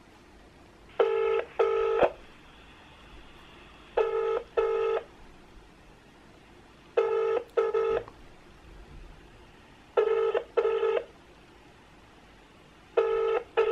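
Ringback tone of an outgoing mobile phone call heard over the phone's speaker: a British/Irish-style double ring, two short tones close together, repeating every three seconds, five times, while the call waits to be answered.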